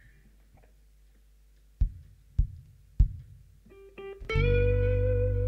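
Three sharp, evenly spaced knocks about half a second apart, then a few short notes, and about four seconds in a loud sustained chord on guitar and bass guitar opening the song.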